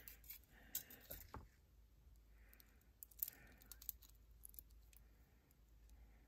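Faint, scattered clicks of glass beads knocking together on beading wire as they are pushed along and handled between the fingers, several in the first second and a half and two more a little after three seconds.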